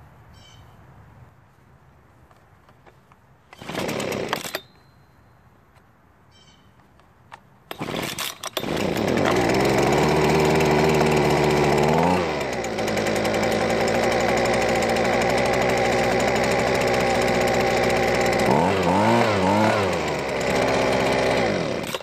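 Husqvarna 125B two-stroke leaf blower engine being started: a short pull on the starter rope about four seconds in, then the engine catches about eight seconds in and runs loud and steady. Its speed drops near twelve seconds and rises and falls a few times near the end before it stops abruptly. It is starting and running now that its swapped primer-bulb fuel lines have been corrected.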